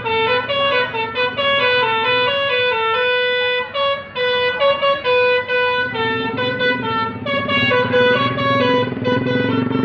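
Basuri musical bus horn playing a melody of short and held notes that step up and down in pitch. A low rumble comes in underneath about six seconds in.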